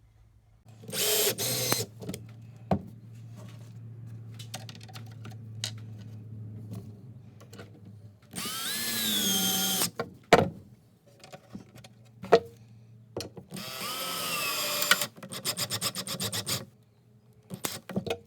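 Cordless drill-driver driving screws into a wooden box in several short runs, its motor whine rising and falling in pitch. Near the end comes a rapid run of clicks, with handling knocks between the runs.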